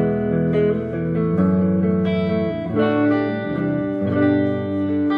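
Electric guitar played clean through a Friedman Runt 20 combo amp, taken from the amp's cab-simulated line out: a run of ringing chords and notes, changing about once a second.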